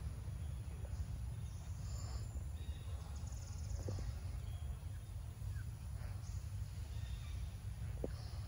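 Outdoor forest ambience: a steady low rumble with faint high-pitched chirps and trills now and then.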